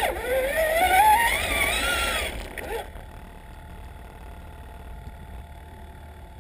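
Electric motor of a Traxxas Summit RC truck whining, rising in pitch as it speeds up for about two and a half seconds, then dropping away to a quieter steady low rumble.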